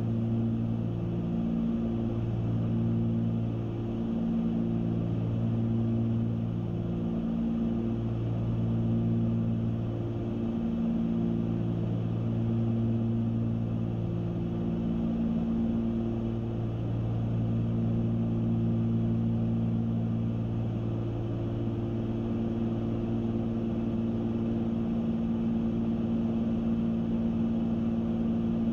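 Cessna 310Q's twin piston engines and propellers droning steadily in cruise, heard inside the cabin. The drone throbs, swelling and fading every two to three seconds and steadying near the end: the beat of the two engines turning at slightly different speeds.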